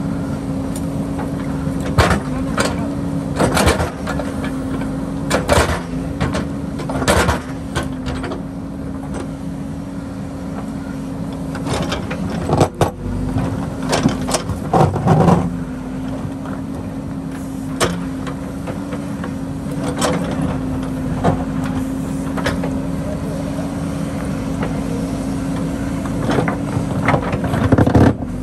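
JCB backhoe loader's diesel engine running with a steady droning tone as the backhoe digs, its steel bucket knocking and scraping against river stones and gravel at irregular moments.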